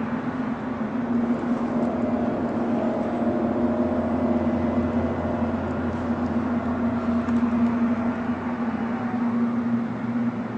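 Unexplained low droning hum of the kind reported as a strange sound from the sky: a steady held tone with fainter higher tones above it, and a deeper hum that swells in the middle and eases off near the end.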